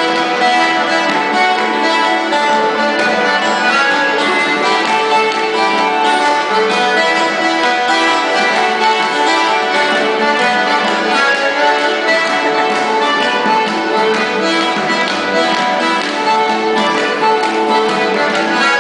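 Instrumental traditional Irish-Newfoundland tune played live by a button accordion with acoustic guitar and harp accompaniment, played continuously.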